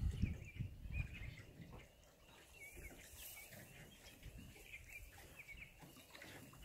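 Faint small-bird chirps, short high calls repeated irregularly. A low rumble under them fades out after about two seconds.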